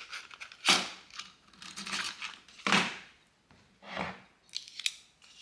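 Clicks, rattles and clacks of a Parkside cordless stapler's staple magazine being opened and reloaded with a strip of larger staples, with three louder clacks among the small clicks.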